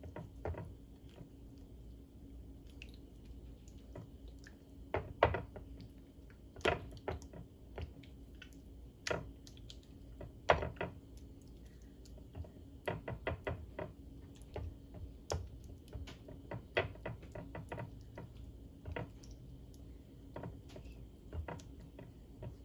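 Raw chicken breasts being coated in an oily marinade, by hand and then with a silicone spatula: soft wet squelching with irregular small taps and clicks against the plate.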